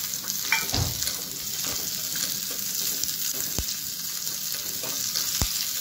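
Sliced onion and cashew pieces sizzling steadily as they fry in oil in a small kadhai, stirred with a metal spoon that knocks lightly against the pan a few times.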